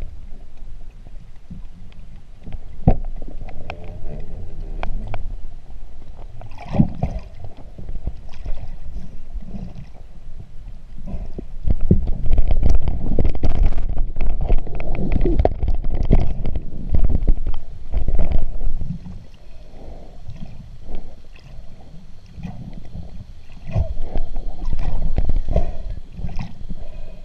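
Muffled underwater sound of water moving around a submerged camera: a low, churning rumble with scattered sharp clicks and knocks, loudest through the middle.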